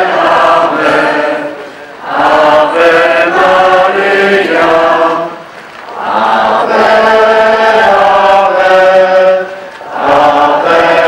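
A procession crowd singing a hymn together, in long sung phrases with short breaks for breath between them.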